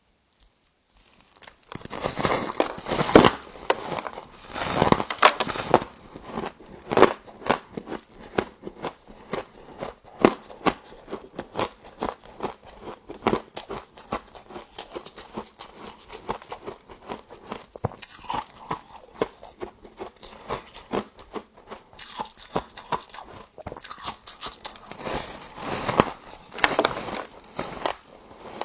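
Close-up crunching and chewing of humidifier frost: dense, rapid crackling crunches, starting after a brief silence, with a few louder bites near the start and one near the end.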